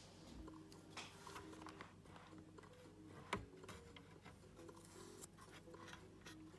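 Near silence with faint small clicks and ticks, and one sharper click a little over three seconds in.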